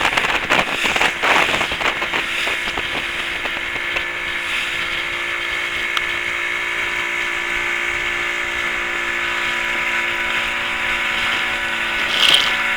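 Motorboat engine running steadily, with a stack of even hum tones and some rattling clicks in the first few seconds.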